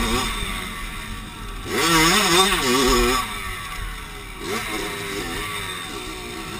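Dirt bike engine revving up and down as the rider works the throttle through tight turns, loudest and highest about two to three seconds in.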